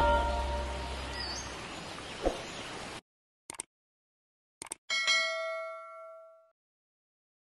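Logo-sting music fading away, with a soft hit about two seconds in. After a break, two short clicks and then a bright bell ding that rings out for about a second and a half: the subscribe-button click and notification-bell sound effect.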